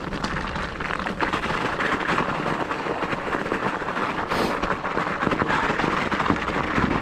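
Mountain bike tyres rolling downhill over icy gravel and then snow, a dense crunching crackle of many small clicks that grows louder after about a second, with a brief hiss about four and a half seconds in.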